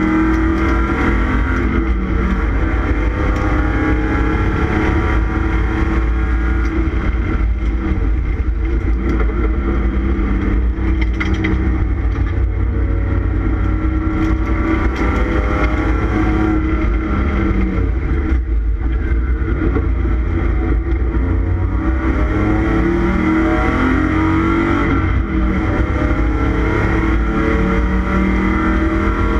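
1989 Ford Taurus SHO's 3.0-litre Yamaha V6 heard from inside the stripped race-car cabin at speed, its revs climbing and dropping again and again as it is driven hard around the track, over a heavy low rumble of road and wind noise.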